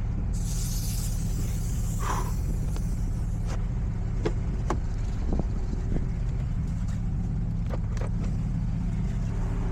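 A vehicle engine idling steadily, with a hiss lasting about three seconds near the start and a few light clicks.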